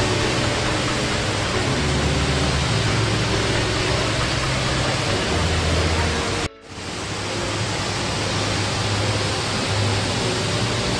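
Steady rushing roar of a 40 m indoor artificial waterfall plunging into its basin, with music playing low underneath. The sound cuts out for a moment a little past the middle and then returns.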